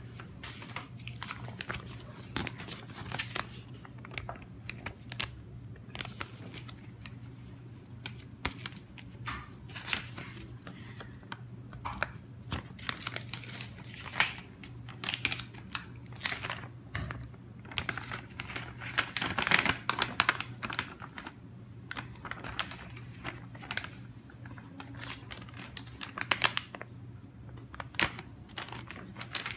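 Printed plastic film pouches crinkling and rustling as they are handled, flexed and shuffled, in irregular crackles that grow denser and louder a little past halfway. A steady low hum runs underneath.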